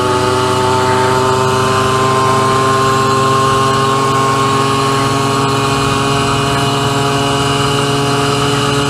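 Simson single-cylinder two-stroke moped engine running flat out at steady high revs. Its pitch climbs a little over the first few seconds, then holds.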